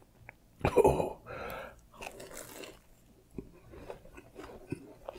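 A man chewing a mouthful of fried apple pie with his mouth closed, close to the microphone. There is a louder crunchy burst about a second in, then softer wet chewing and small mouth clicks.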